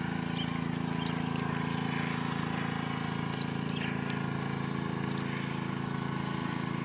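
An engine running steadily at an even pitch, a constant hum with a few faint clicks over it.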